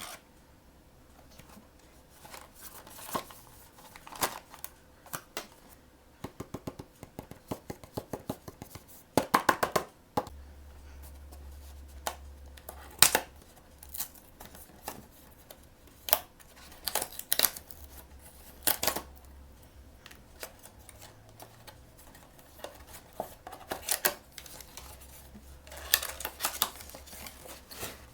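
Hands opening blind-box packaging: a run of sharp clicks, snips and taps of plastic and cardboard, with a quick flurry about nine seconds in and denser crinkling and tearing of wrapping near the end.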